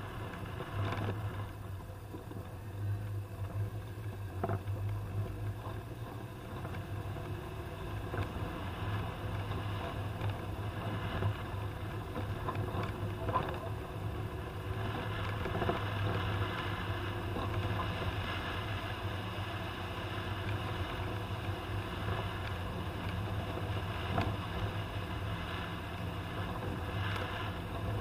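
Toyota Land Cruiser running along under way: a steady low engine drone with road noise and a few scattered knocks.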